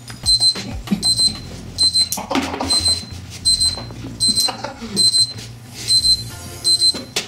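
Electronic alarm beeping: short, high-pitched beeps in quick pairs, repeating about twice a second, over background music with a steady bass line.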